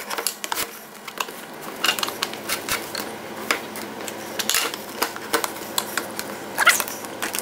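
Screwdriver prying and working at the seam of a plastic EVAP charcoal canister's end cap, making irregular sharp clicks and knocks.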